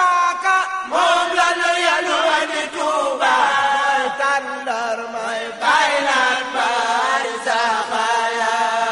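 Mouride devotional chanting: several voices singing a religious chant together in long, rising and falling melodic lines.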